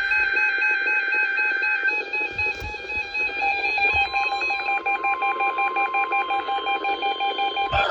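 Electronic tones from a NOAA weather radio broadcast over a hiss of radio noise. Several steady tones hold throughout, a further steady tone joins about halfway with a fast pulsing, and a louder burst of tones starts at the very end.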